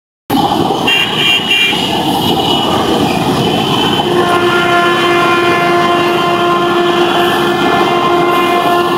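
Passenger train running past, its wheels on the rails making a steady rumble, with a brief high-pitched tone about a second in. From about four seconds in a train horn sounds one long steady note.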